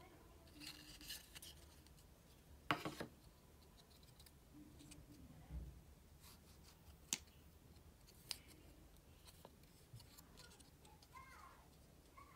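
Cardboard and paper inserts of an AirPods Pro box being handled and pulled apart: faint rustling with a few sharp snaps and clicks, the loudest about three seconds in.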